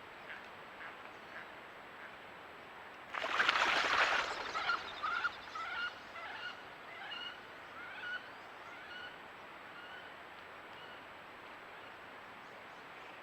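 Geese honking: a string of short calls that grow fainter, after a loud rush of noise about three seconds in.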